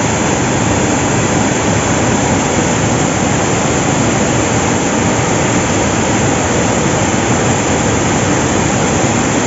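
River water rushing over a dam, a loud, steady rush that does not change.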